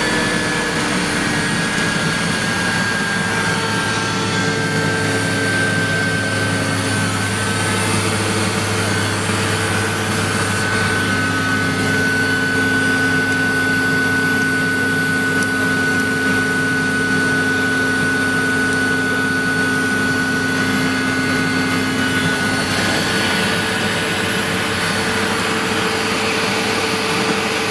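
Mi-2 helicopter's twin GTD-350 turboshaft engines running, heard from inside the cockpit: a loud steady turbine noise with a high whine that slides slightly down in pitch over the first several seconds, then holds.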